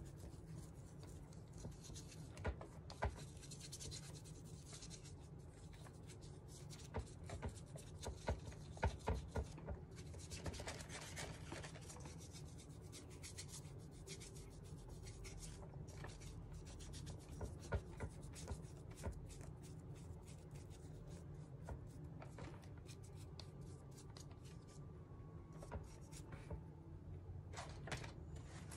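Faint scratchy rubbing of a paintbrush working paint onto a resin robin figurine, with scattered small clicks and taps from handling the figurine, over a low steady hum.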